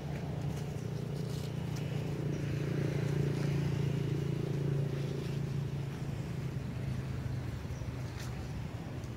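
Motor vehicle engine running, a low steady hum that grows louder about three to five seconds in and then eases off, with a few faint ticks over it.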